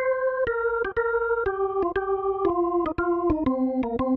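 Instrumental melody on an electronic organ-style keyboard: a single line of steady held notes, about two a second, stepping down in pitch.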